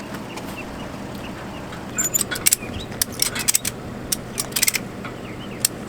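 A steady low hum with a run of sharp clicks and rattles starting about two seconds in, in quick clusters.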